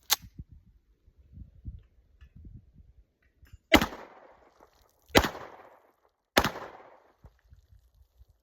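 Girsan P35 9mm pistol firing: a sharp crack at the very start, then three shots spaced about a second and a half apart, each with a short echoing tail.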